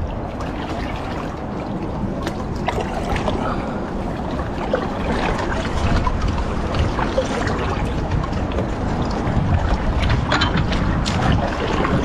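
Water lapping and splashing around a small boat, with wind rumbling on the microphone and a few light knocks.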